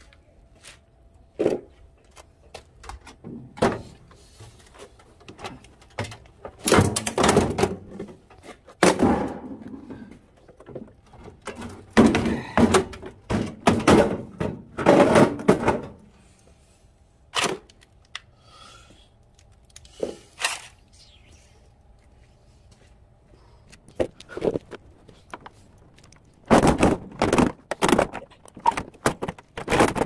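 Sheet-metal casing of a scrapped microwave oven being handled on concrete: a series of thunks and clanks as it is shifted and turned over, coming in several clusters with quiet gaps between.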